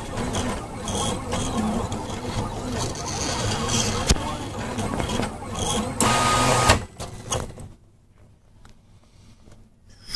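Delta 3D food printer's stepper motors whining in shifting pitches as the print head moves while printing pumpkin paste. About six seconds in there is a brief louder hiss, and after about eight seconds the motors stop and the sound falls much quieter.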